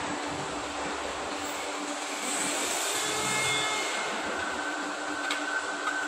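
A CNC stretch forming machine runs with a steady mechanical hum and hiss while its arm units move. A thin high whine comes in over the last part, with a single sharp click about five seconds in.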